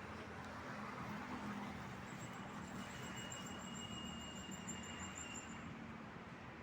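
Steady road traffic noise with a low hum from passing cars. A faint, thin, high tone wavers over it for about three seconds in the middle.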